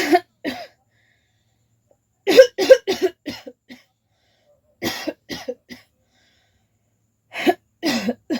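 A woman coughing in four fits of several quick, harsh coughs each, a couple of seconds apart. It is a real cough that keeps coming back once it starts.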